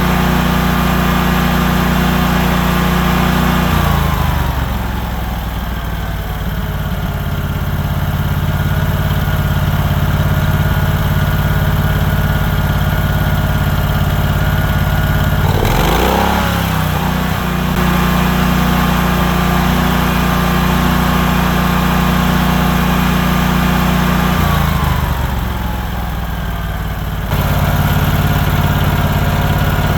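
Generac-built 15 kW standby generator's 32 hp V-twin OHV engine running at steady speed. Its note shifts downward about four seconds in and changes back near the end, with a short rising whir about halfway through.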